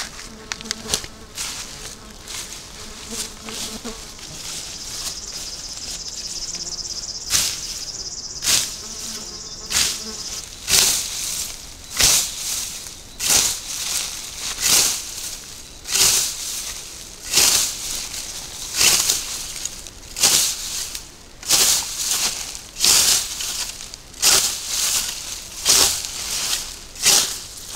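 Hand scythe with a freshly peened blade swishing through tall grass in steady mowing strokes, about one every second and a half, starting some seven seconds in. Before the mowing starts, insects buzz and chirp steadily.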